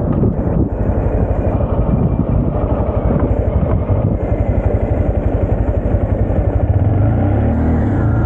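Honda Grom's small single-cylinder engine running as the motorcycle is ridden, a steady fast-pulsing note that swells a little partway through.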